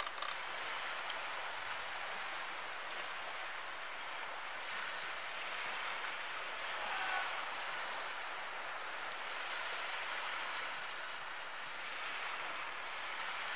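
Steady rushing outdoor background noise, like distant water or traffic, with a few faint high ticks scattered through it.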